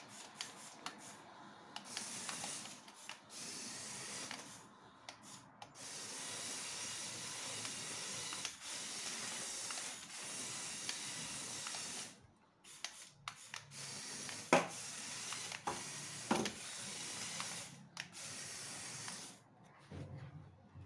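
LEGO Technic remote-control drift car running across a tiled floor: a hissing mechanical whir that comes in several stretches with short pauses between. A couple of sharp knocks stand out about two-thirds of the way through.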